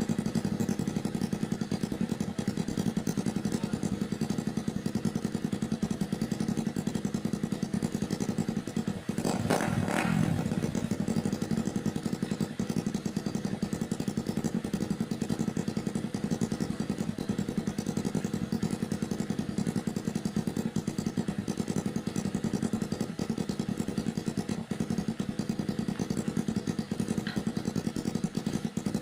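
Motorcycle engine running steadily through a homemade 'chicken pipe' exhaust, with one short louder burst about nine to ten seconds in.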